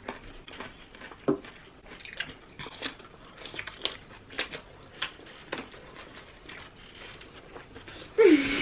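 Raw cucumber being bitten and chewed fast: irregular crisp crunches, several a second, then a short vocal sound near the end.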